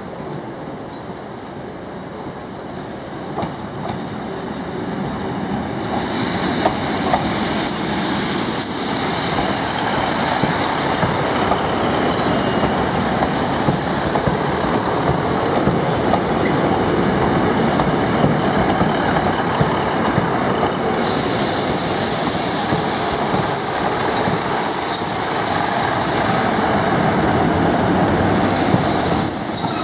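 Class 150 Sprinter diesel multiple unit running slowly past, its underfloor diesel engines and its wheels on the rails growing louder over the first several seconds and then holding steady. Brief high-pitched wheel squeals come at times.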